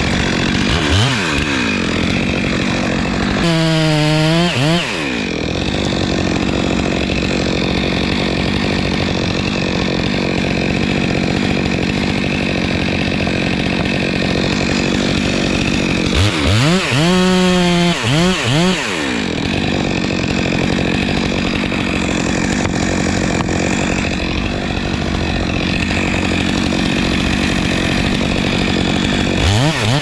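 Stihl MS 462 two-stroke chainsaw running at full throttle while cutting through a tree trunk at its base to fell it. The engine note dips and comes back up a few times.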